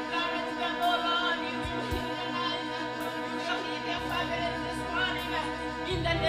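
Church worship music: singing over sustained held chords, with low bass notes coming in about two seconds in and again near the end.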